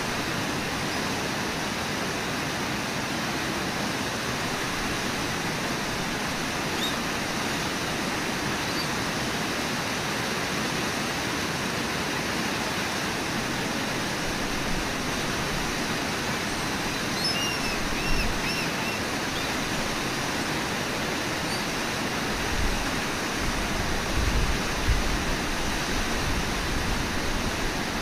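Steady rush of a river pouring over a waterfall into whitewater rapids. A brief run of faint high chirps comes about two-thirds of the way through, and a few low thumps near the end.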